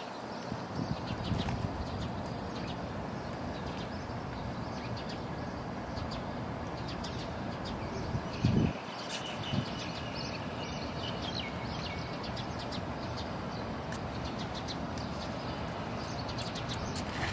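Outdoor background: a steady hiss with scattered faint clicks and faint bird chirps, and a brief low thump about eight and a half seconds in.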